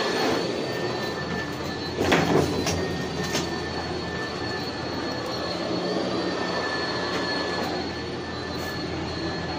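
Hotel elevator car in motion: a steady rushing hum with a thin, steady high whine over it. There is a single knock about two seconds in.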